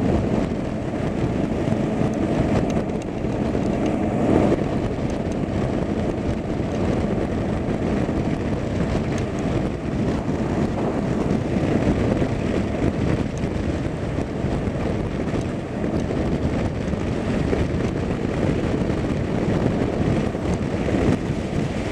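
Steady low rumble of a moving vehicle's engine and road noise, with no distinct events.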